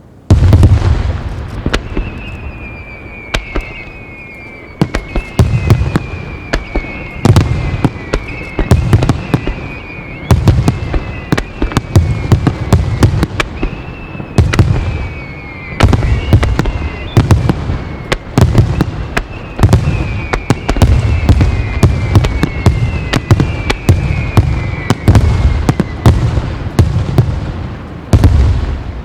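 Wide starmine fireworks display: rapid salvos of shells bursting with deep booms and sharp cracks, starting abruptly just after the start. Over them sound many whistles, one after another, each sliding down in pitch.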